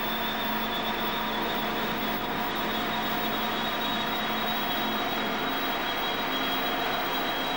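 Steady rushing of wind and churning sea between two ships running close alongside, with a steady machinery hum and a faint high whine underneath.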